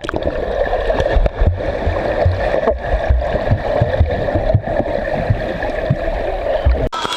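Rushing, gurgling water on a water-park slide, muffled, with irregular low thumps; it cuts off abruptly near the end.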